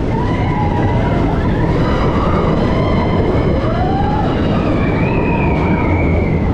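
Mine-train roller coaster running along its track, heard from on board: a loud, steady rumble of the train on the rails with a steady high-pitched whine over it.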